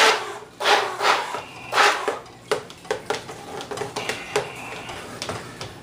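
A stick blender's metal shaft stirred by hand through thick pureed salsa in a bowl, with its motor off. It makes a run of irregular wet sloshes and knocks against the bowl, loudest at first and growing lighter toward the end.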